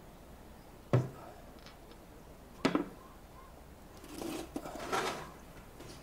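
Two sharp knocks about a second and a half apart, dishes set down on a wooden table, then a stretch of scraping and rustling about four seconds in as a man sits down at the table.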